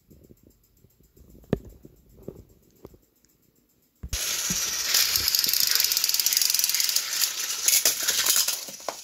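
A few faint handling clicks and knocks, then about four seconds in a sudden loud, steady rattling whir with dense crackling clicks, the sound of battery-powered Thomas & Friends toy engines running along plastic track.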